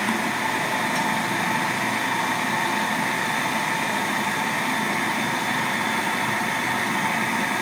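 Food processor running steadily, its blade grinding soaked chickpeas, fava beans, herbs and onion into falafel dough, with an even motor whine.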